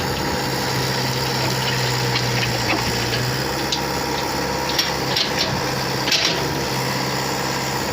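A heavy construction machine's engine running steadily, with intermittent scraping and clattering.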